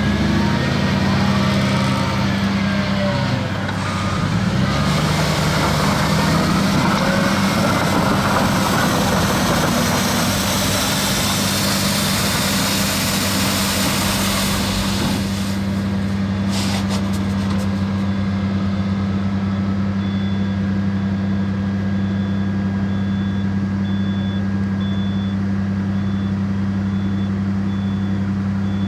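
Diesel engine of a Volvo L60G wheel loader running steadily as it drives past and away. Its front-mounted rotary sweeper brush hisses loudly against the asphalt until about halfway through, then falls away. In the last third a reversing alarm beeps repeatedly.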